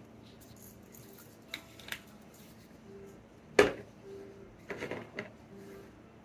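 Scattered light clicks and taps of things being handled, with one sharp knock about three and a half seconds in.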